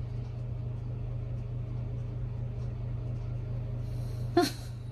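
Steady low hum, with one short sharp sound and a brief hiss near the end.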